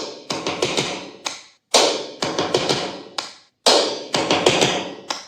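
Sharp percussive hits in a quick irregular beat, clap- and stomp-like, played back through a small portable Bluetooth speaker. The run is broken by several brief drops to silence.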